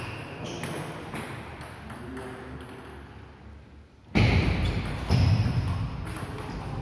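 Table tennis rally: the ball clicking off the bats and the table in a sports hall. About four seconds in, a sudden much louder, low-heavy noise sets in for a second or two over the clicks.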